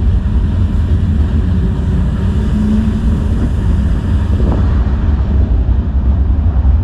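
Iron ore freight train running, a steady heavy low rumble heard from on top of an open ore wagon, with a brief low tone about two and a half seconds in.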